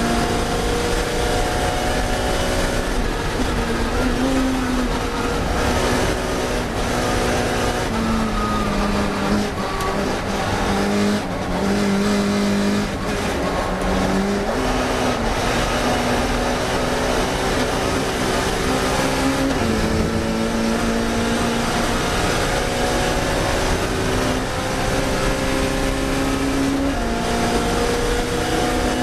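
Classic Mini racing car's four-cylinder engine running hard at racing speed, its pitch climbing through each gear and stepping down at several gear changes.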